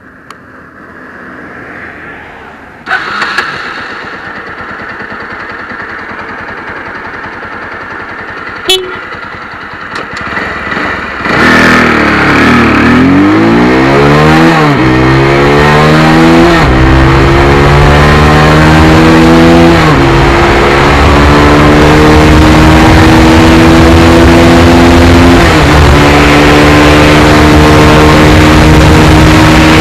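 Bajaj Pulsar 160NS single-cylinder engine, running low at first, then from about eleven seconds in accelerating hard through the gears: each upshift is a sudden drop in pitch followed by a steady climb, about five shifts in all, with wind rush building as the speed rises.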